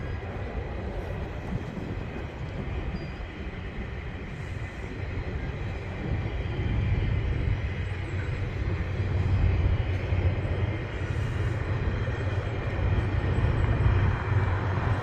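GO Transit diesel commuter train departing: a steady low engine drone and the rumble of the cars on the rails, growing louder about six seconds in.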